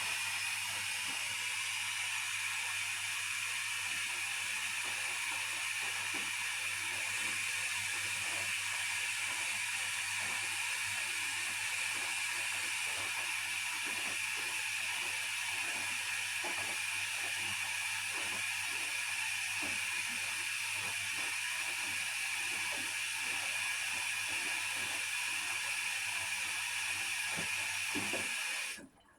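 Hotpoint Aquarius washing machine hissing steadily over a low electrical hum, with faint irregular knocks, like water rushing in through the fill valve. It cuts off suddenly near the end.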